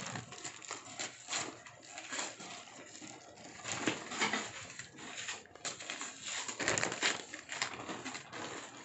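Paper and plastic wrapping rustling and crinkling in irregular bursts as gift items are unwrapped by hand.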